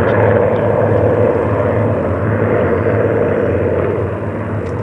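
Massed piston engines of a formation of Spitfire and Hurricane fighters flying overhead: a steady, loud, pulsing drone that eases slightly near the end.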